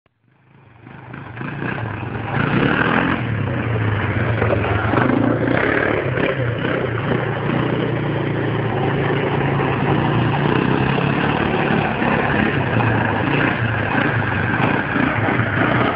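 Sport quad's engine running and revving as it is ridden up on its rear wheels, fading in over the first couple of seconds and then staying loud and steady.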